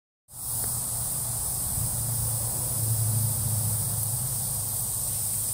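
Steady outdoor background noise: an even high hiss with a low hum underneath.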